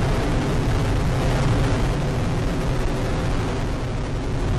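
Delta IV Heavy rocket's three RS-68A engines burning at full thrust in ascent, a steady, deep rumble of exhaust noise.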